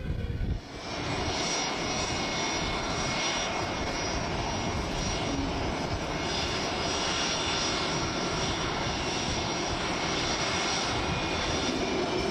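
FA-50PH fighter's single F404 turbofan jet engine running, a steady noise with a high whine through it, coming in about a second in.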